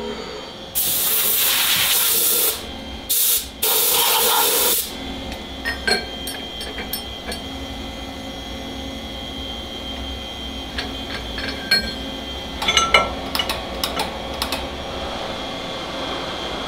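Compressed-air blow gun hissing in three blasts (long, short, long) in the first five seconds, then scattered metallic clinks and taps as the steel rock drill head is handled in the machine, over a steady machine hum.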